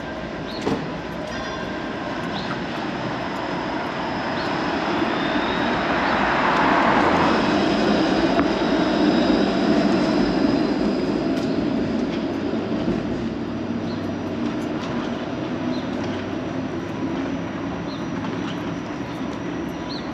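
Streetcar passing close by, a rumble with a few steady whining tones that builds to its loudest about a third of the way in, then slowly fades, over continuous street traffic.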